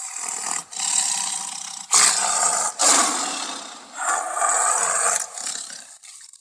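Made-up Ceratosaurus roar sound effect: a string of about five harsh roars in quick succession that trails off and cuts to silence near the end.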